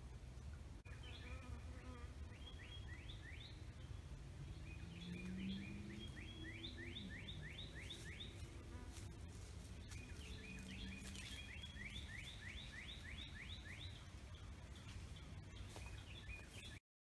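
Swamp wildlife calling: runs of quick, high rising chirps, several a second, repeating in bursts over a low steady rumble. It all cuts off suddenly near the end.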